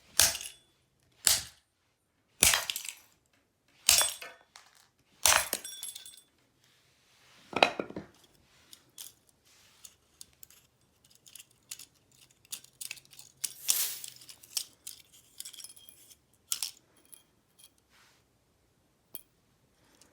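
A mechanical kitchen timer being smashed: six sharp blows a second or two apart, then scattered small clinks and rattles from its broken pieces and gears.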